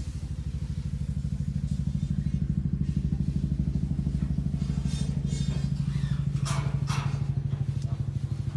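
Subaru Sambar kei truck's small engine idling steadily, a low even pulsing hum, with a few faint knocks and rustles around the middle and near the end.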